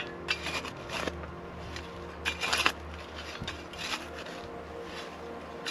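A small shovel scraping and digging in the ash and dirt of a stone fire ring, in several separate strokes, the loudest about two and a half seconds in. Soft background music with held notes plays underneath.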